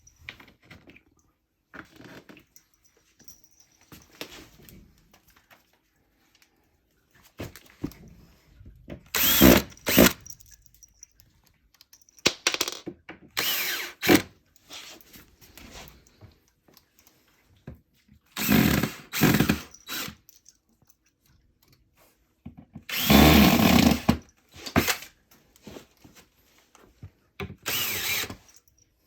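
Power drill driving screws into a wooden panel in several short bursts, with quiet pauses between them.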